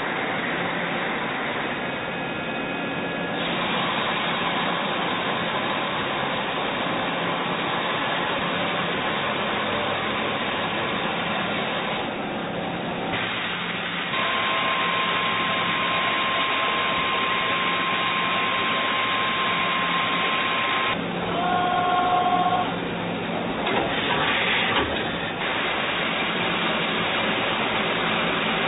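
Doosan Puma MX1600ST multitasking CNC lathe machining, with a steady hiss of cutting and a spindle whine. The sound changes abruptly several times. A steady whine holds from about halfway for several seconds, then shorter higher whines follow.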